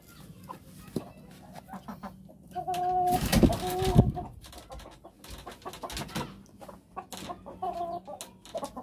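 Chicken clucking and squawking: a loud, drawn-out squawk about three seconds in and a shorter call near the end, with scattered clicks between.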